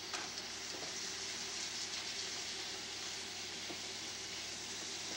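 Seasoned beef sizzling as it browns in a frying pan, stirred with a spatula: a steady frying hiss with a few faint ticks.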